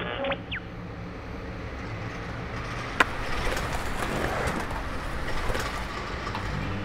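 Steady outdoor background noise with a low hum, and one sharp knock about three seconds in.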